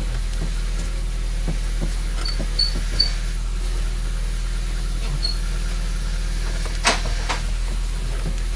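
Rover 214i's 1.4 K-series petrol engine idling steadily, heard from inside the cabin, while the steering wheel is turned from lock to lock to bleed air out of the power-steering system. A few short high chirps come about two to three seconds in and again past five seconds, and two sharp knocks come near seven seconds.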